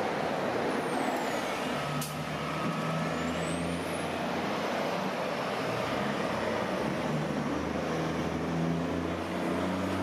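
A semi-truck's diesel engine running as it pulls a loaded tanker through a turn, its low engine note growing stronger toward the end, over steady traffic noise that includes a city bus. A brief sharp air hiss comes about two seconds in.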